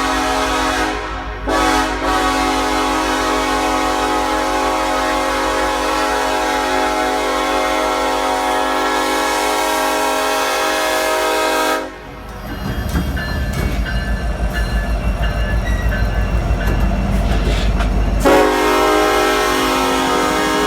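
Nathan K5LLA five-chime air horn on a Norfolk Southern locomotive sounding a steady chord. It breaks briefly near the start, then is held for about ten seconds and cuts off. Then comes a low train rumble pulsing about three times a second, until the horn sounds again near the end.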